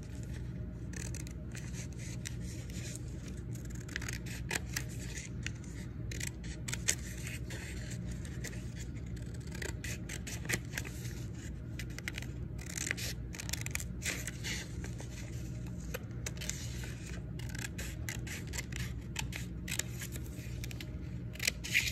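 Scissors cutting through folded paper: a long run of short snips with paper rustling between them.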